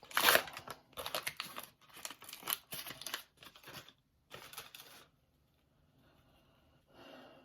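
A baseball card pack's wrapper being torn open and crinkled, in a quick run of crackling rustles and one more burst about four and a half seconds in, then almost quiet.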